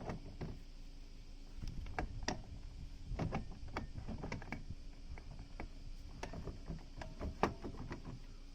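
Irregular clicks, knocks and light clatter of hand tools and metal parts being handled while working on a scooter, with one sharper knock near the end.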